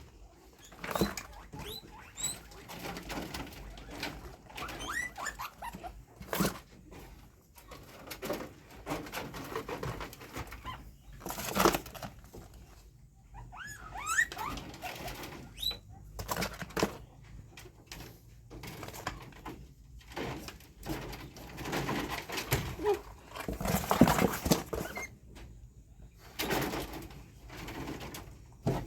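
Guinea pigs scurrying and rustling about, with short, high squeaks that rise in pitch now and then.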